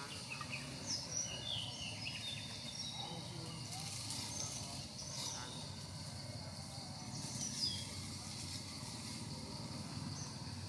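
Outdoor forest ambience: scattered short, high chirps of small birds over a steady low background noise.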